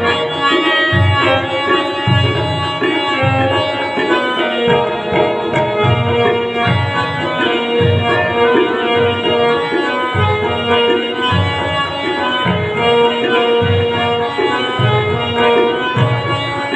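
Harmonium and tabla playing an instrumental passage over loudspeakers: the harmonium holds sustained reedy notes while the tabla keeps a steady beat with deep bass-drum strokes.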